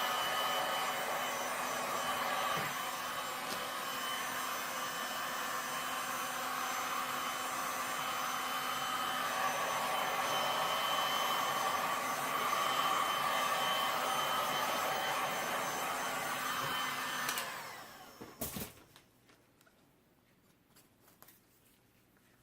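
Handheld electric heat gun blowing hot air steadily over freshly poured resin to warm and thin it so it flows. It is switched off about three-quarters of the way through and winds down, followed by a single knock and a few faint taps.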